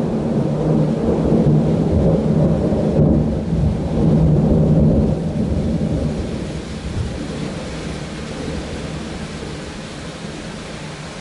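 Thunder rumbling loudly for about five seconds, then slowly dying away, with the steady hiss of rain throughout.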